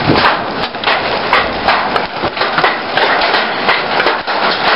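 Heavy hailstorm: large hailstones, some softball size, hitting hard and fast in a dense, irregular clatter of impacts over a steady rush of falling hail and rain.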